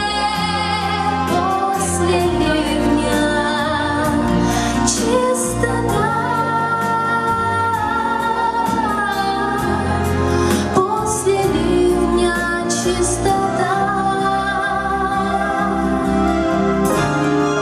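A woman singing a Russian pop ballad in a sustained, vibrato-laden voice over musical accompaniment with held bass notes and regular cymbal-like strokes.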